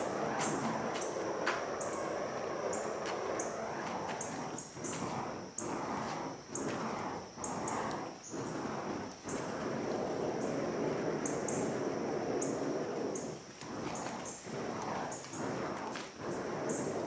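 Burning wicks of a spinning fire hoop whooshing. The rush of flame swells and fades with each pass, about once or twice a second in places.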